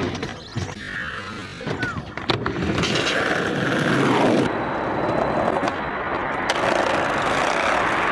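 A skateboard clacks and slaps down a couple of times in the first few seconds, then its wheels rumble steadily as it rolls over pavement.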